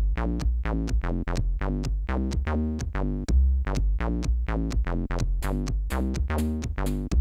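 Commodore 64 SID chip music with a steady electronic drum beat over stepped bass and synth notes.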